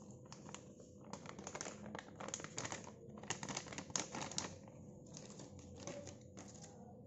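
Plastic packet of seasoned flour mix crinkling and crackling as the flour is shaken and poured out into an aluminium pot, a quick run of small crackles that stops a little before the end.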